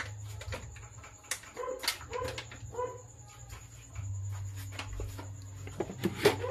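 An animal calling three times, short pitched calls about half a second apart, a little after a second in. Sharp clinks sound at about 1.3 and 1.9 seconds, with a louder cluster near the end, and a low steady hum comes in about four seconds in.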